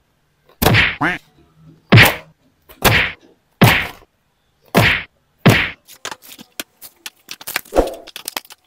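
Packaged toy action figures in crinkly plastic bags being dropped one after another onto a tabletop mat, making a loud slap each time, about one a second. Near the end come lighter crinkling and clicks as a bagged figure is handled.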